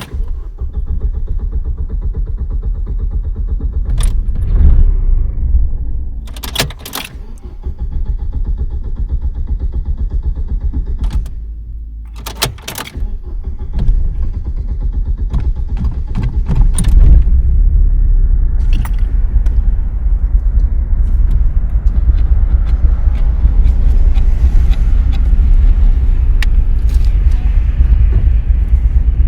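A car's starter motor cranking the engine in long, repeated attempts without it starting, with sharp key clicks and jangling between attempts. The last crank, from about halfway through, runs longest and loudest.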